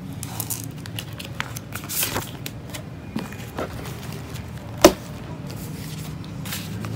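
Paper banknotes and clear plastic binder pockets rustling as bills are handled and tucked into a ring binder, with scattered light clicks and one sharp click a little before five seconds in, over a steady low hum.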